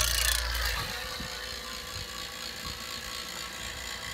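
Refrigeration vacuum pump switched on to begin evacuating an air-conditioning system after a TXV replacement. The motor starts with a loud surge for under a second, then runs steadily with an even hum.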